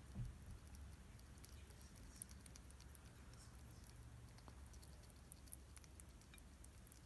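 Hedgehog crunching dry hedgehog kibble, faint irregular crisp clicks of chewing over a low steady hum, with one soft low thump just after the start.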